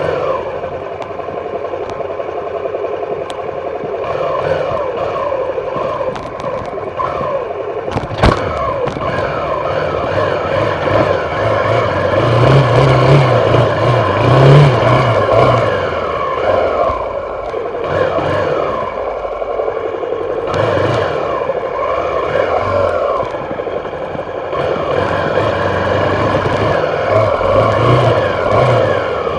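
Dirt bike engines running, with the pitch rising and falling again and again as the throttle is worked. There is one sharp click about eight seconds in.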